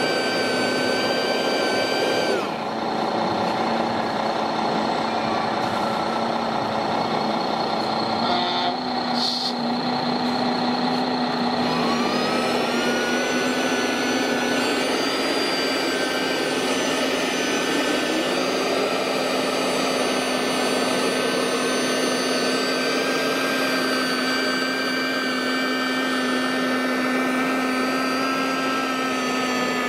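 Electric suction fan and turning brushes of a 1/16 scale RC Iveco vacuum road sweeper, a steady whine. Its pitch drops about two seconds in and climbs again about twelve seconds in.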